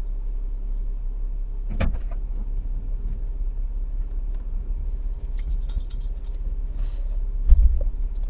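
Vehicle engine idling as a steady low rumble, heard inside the cabin, with a knock about two seconds in, light metallic jingling around the middle, and a heavy thump near the end as a dog climbs into the back.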